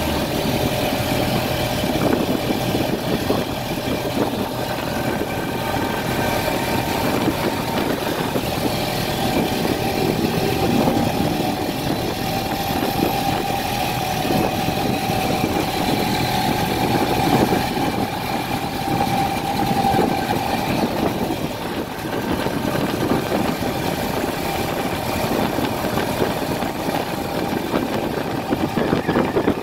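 Motorcycle-drawn tuk-tuk's engine running steadily as it drives, heard from the open passenger cab together with road and passing traffic noise.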